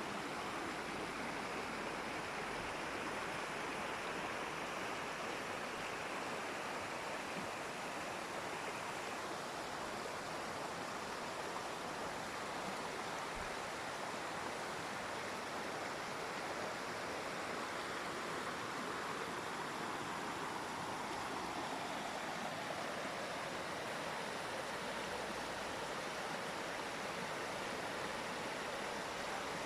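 Waterfall: a steady rush of falling water, even and unbroken, with a slow, gentle shift in its tone.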